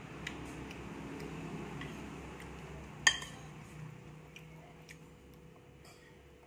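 Metal spoon clinking and scraping against a plate of rice, with a few light clinks and one sharp, louder clink about three seconds in.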